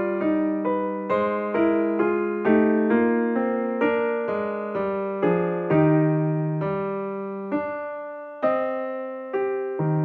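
Background piano music: a slow melody of single struck notes, each fading away after it is played, with the notes spaced further apart in the second half.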